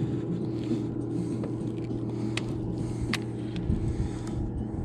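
Steady low hum of the bass boat's motor, with two sharp clicks about two and three seconds in.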